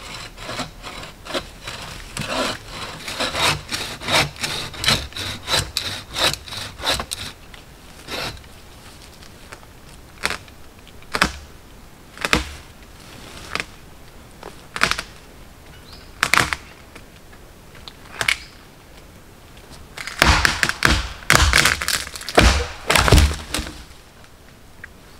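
A hand saw cutting into a tree trunk in quick, even strokes. After about seven seconds it gives way to single hatchet chops into the wood every second or two. Near the end comes a dense run of loud cracks and heavy thuds.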